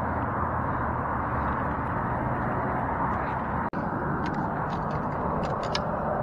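Steady rush of distant city traffic. A few light footsteps crunch on gravel in the second half.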